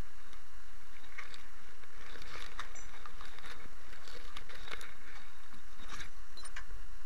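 Camera handled close to the ground among long grass: rustling, with scattered small clicks and knocks throughout, over a steady low hum.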